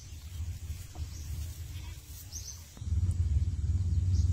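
Outdoor ambience: a low rumble that gets louder about three seconds in, with a few short, high bird chirps.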